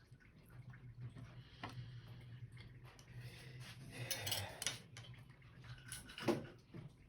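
Kitchenware being handled: light clicks and clatter over a low steady hum, with a louder knock about six seconds in.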